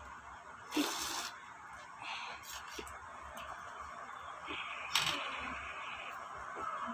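Metal spoons clinking and scraping on ceramic dishes: a short scrape about a second in, a few light clicks, then a sharp click and a brief scrape about five seconds in.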